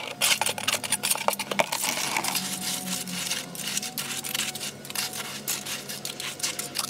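Wet concrete pouring from a bucket into a steel wheel rim and slopping around a steel post, with dense crackling and clinking of gravel throughout.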